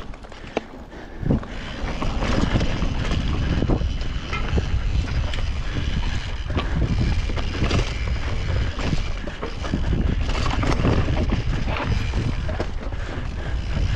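Mountain bike ridden fast over forest singletrack: wind buffeting the microphone and tyres rolling on dirt, with frequent knocks and rattles from the bike as it goes over roots and bumps.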